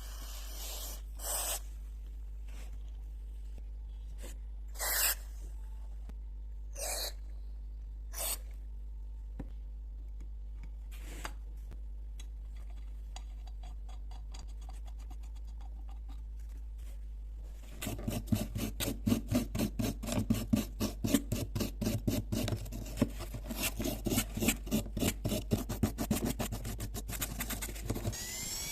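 Hand filing or scraping on a metal carburetor part. A few separate strokes come first, then from about two-thirds of the way in a quick, steady back-and-forth run of strokes, several a second. A rising whine starts right at the end.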